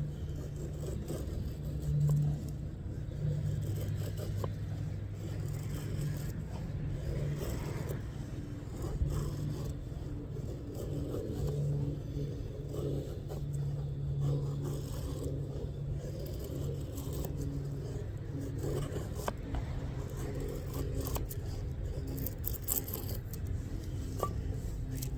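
Knife blade scraping and cutting in short, uneven strokes, over a steady low hum.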